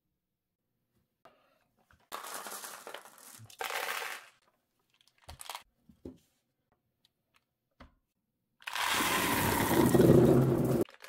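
Glass marbles clattering: two short bursts of rattling about two seconds in, a few scattered clicks, then a loud, dense rush of many marbles sliding out of a tipped plastic toy dump truck bed and rolling onto wooden blocks near the end.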